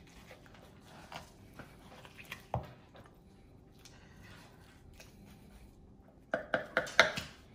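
Kitchen knife carving the breast off a crispy-skinned air-fried whole chicken on a plastic cutting board: quiet slicing with a few small ticks, then a quick run of sharp crackles and knocks near the end as the piece comes free.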